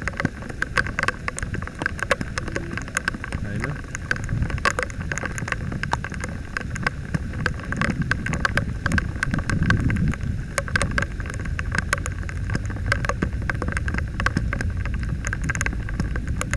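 Heavy rain: a dense, irregular run of sharp raindrop ticks close by, over a steady low rumble.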